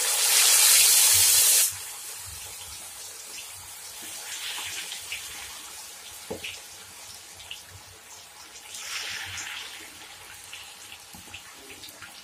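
Chicken pieces coated in an egg-and-cornflour batter going into hot oil in a kadhai: a loud burst of sizzling as the first piece drops in, then the steady bubbling hiss of deep frying. The hiss swells again about four and nine seconds in.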